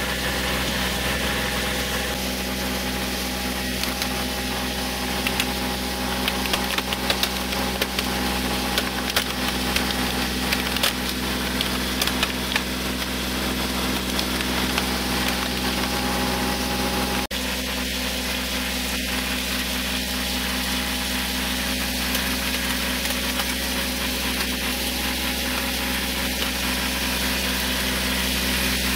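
Kubota tractor's diesel engine idling steadily while its tire rolls onto a plastic RC model car, with a run of sharp cracks and crunches from about five to thirteen seconds in as the car's body breaks under the weight.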